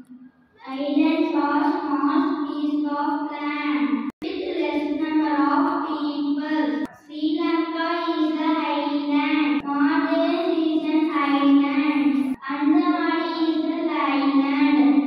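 A boy singing into a microphone, holding long, fairly steady notes in about five phrases of roughly three seconds each, with short breaks between them.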